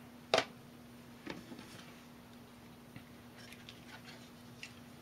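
Handling noise as small packed items are lifted from a box: a sharp click, then a few faint taps and rustles as a CD in a plastic sleeve and a sheet of laser-cut wood pieces are picked up, over a faint steady hum.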